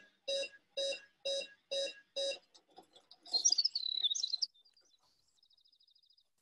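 A short note repeated evenly about twice a second, like an alarm-clock beep, stopping a little over two seconds in. It is followed by a bird's brief warbling chirp and then a faint, fast, high trill.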